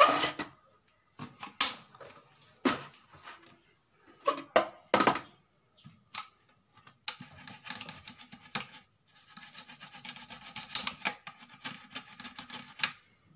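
Plastic kitchen-appliance parts knocked and handled a few times, then a toothbrush scrubbing the plastic top of a blender motor base around its drive coupling in a quick run of strokes from about seven seconds in.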